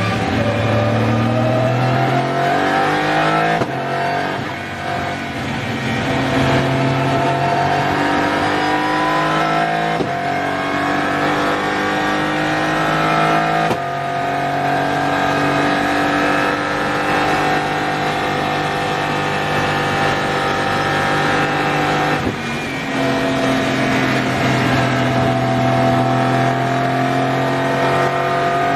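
Aston Martin Vantage GT3 Evo's twin-turbo V8 race engine heard from inside the car at racing speed, its pitch climbing under acceleration and breaking off sharply at gear changes several times.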